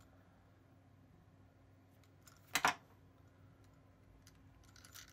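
A pair of scissors clacks once, short and sharp, about two and a half seconds in, amid faint small clicks of hands working the clay against quiet room tone.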